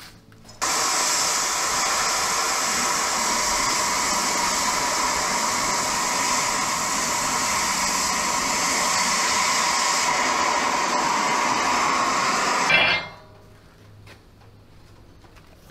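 Oxy-fuel cutting torch blowing through steel plate: a loud, steady hiss that starts suddenly about half a second in and cuts off abruptly about 13 seconds in.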